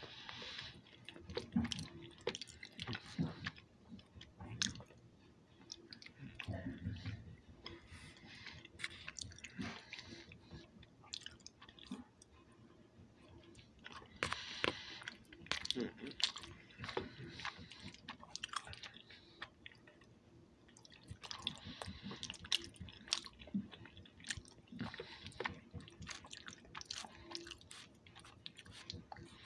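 A person chewing macaroni and cheese, with many small, irregular mouth clicks throughout.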